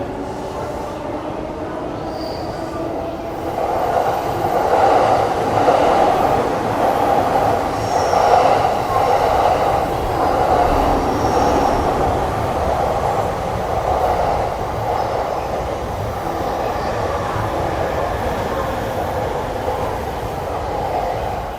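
Electric train running past on the rails: a steady rumble of wheels on track that swells about four seconds in and slowly eases off, with faint high wheel squeal at times.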